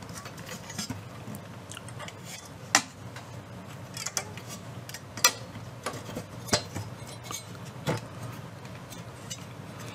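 Light metallic clicks and taps, about half a dozen sharp ones spread unevenly, from a painted metal dial backing plate being fitted into a valve radio chassis and handled with a screwdriver.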